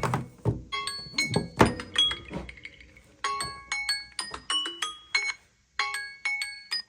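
Alarm tones from several Samsung Galaxy phones ringing at once: overlapping chiming, marimba-like melodies of short bright notes, mixed with a few dull low thumps. The chimes break off briefly about five and a half seconds in, then start again and cut off near the end.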